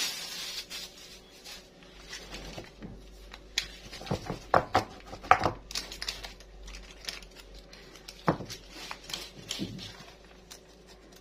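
A clear plastic food-prep glove crinkling as it is pulled off a hand, followed by scattered light knocks and taps as a tray lined with parchment paper is handled on the table.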